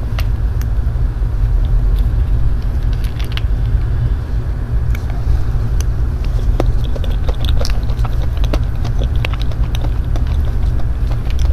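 Spoon scooping into a soft cream-topped lava cake, then small clicks and wet mouth sounds of eating. Under it all runs a steady low rumble, which is the loudest sound.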